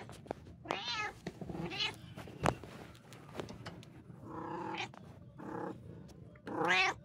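A cat meowing repeatedly, about five short meows, with a single sharp click about two and a half seconds in.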